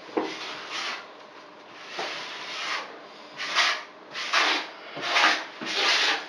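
Repeated rubbing strokes against the wall as Laticrete liquid waterproofing membrane is spread and worked into the board. There are about seven swipes: a longer one around two seconds in, then shorter ones coming faster in the second half.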